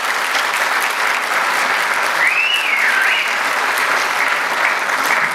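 Audience applauding steadily, with a short wavering whistle from the crowd about two seconds in.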